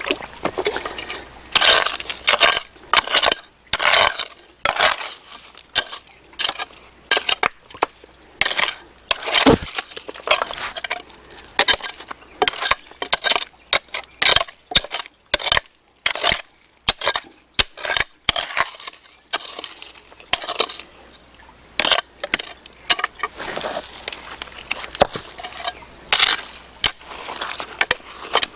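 Small metal-bladed hand hoe chopping and scraping into damp, stony soil: irregular strikes, about one or two a second, with the blade scraping and clinking against stones.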